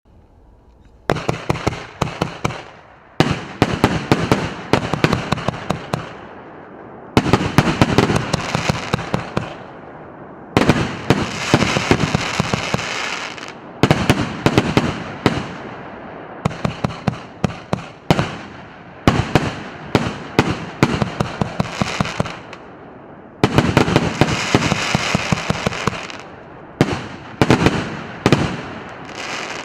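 A 49-shot fireworks battery (cake) firing: rapid volleys of sharp shots and bursts, starting about a second in. The volleys are separated by short lulls, and some stretches are thick with hissing, crackling effects. The last shots fade out near the end.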